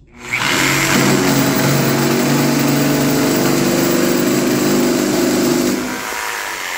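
Mafell P1cc jigsaw at full speed and full pendulum action sawing through a 3-inch-thick pine block with a long wood blade. It starts about a quarter second in and runs steadily for close to six seconds. Near the end the sound drops and thins as the blade comes out of the wood.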